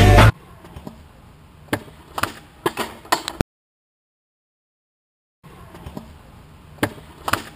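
Stunt scooter on asphalt: a handful of sharp clacks and knocks from the scooter's wheels and deck hitting the ground as it rolls and jumps, over faint outdoor background. Music cuts off just after the start, and there is a two-second dropout of total silence in the middle.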